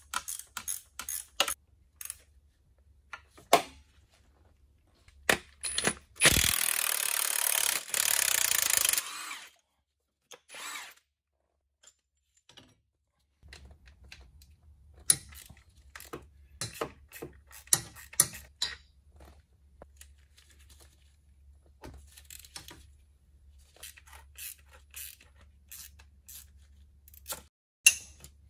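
Tools clicking and knocking on metal, with one loud, steady, hissing whirr of a power tool lasting about three seconds, some six seconds in.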